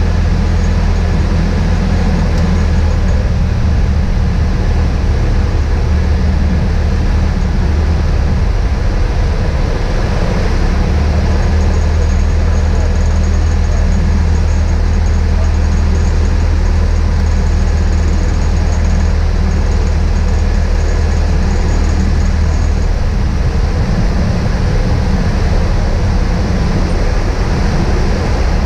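Beechcraft Musketeer's piston engine and propeller droning steadily in flight, heard from inside the cabin. The low drone lightens a little near the end.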